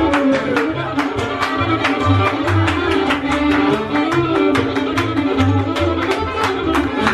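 Live acoustic bluegrass band playing: fiddle, mandolin and acoustic guitar, with sharp strummed or chopped strokes keeping a steady driving rhythm and a bass line underneath.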